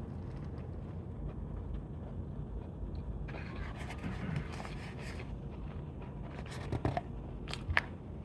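Quiet eating sounds: a fast-food wrapper or bag rustles and scrapes for about two seconds midway, then a few small clicks and crunches near the end, over a steady low hum.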